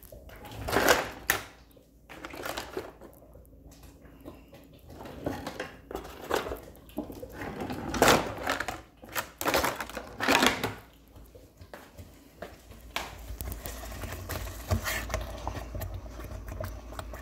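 Kitchen utensils clattering and clinking as a spoon is put into a stainless steel sink and a utensil drawer is rummaged for another spoon, with loud clatters about a second in and again around eight and ten seconds in.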